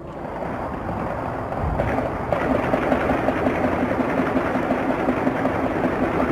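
Rapid automatic gunfire in one long continuous burst. It grows louder over the first two seconds, then holds steady for about four seconds.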